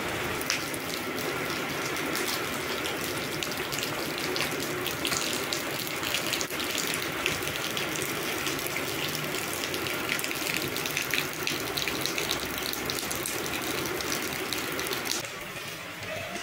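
Rain falling on wet paving and puddles: a steady hiss of water thick with the patter of drops. It softens near the end.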